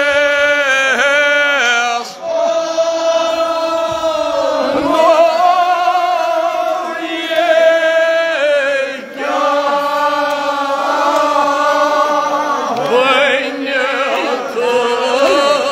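A crowd of mourners chanting a lament together in unison, in long drawn-out lines, with short breaks between phrases about two and nine seconds in.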